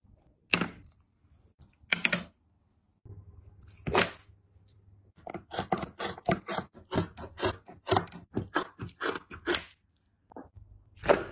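Scissors cutting through a fur-covered animal hide: a quick, even run of snips about four a second, after three separate cuts earlier on and followed by one more near the end.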